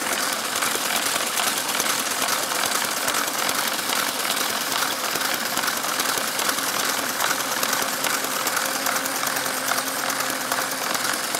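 Small battery-powered Lego electric motors running steadily, driving a toy car wash's spinning brushes and its geared conveyor: a continuous whir with a fast, even clicking.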